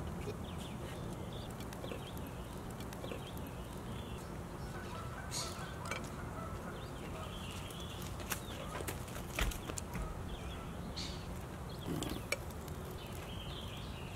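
Outdoor background noise with faint bird chirps, and a few sharp clicks as metal tongs set grilled chicken wings down on a ceramic plate.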